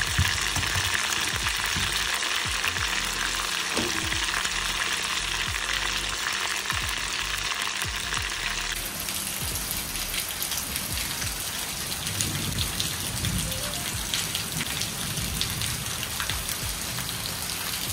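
Chicken pieces deep-frying in hot oil in a clay pot, a steady sizzle. About nine seconds in it changes abruptly to heavy rain falling, a steady patter.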